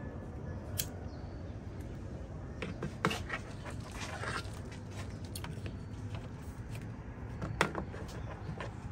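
Scattered light clicks and knocks of hand tools and plastic being handled around a Sprinter van's coolant overflow tank, over a steady low hum. A cluster comes about three seconds in and the sharpest click near the end.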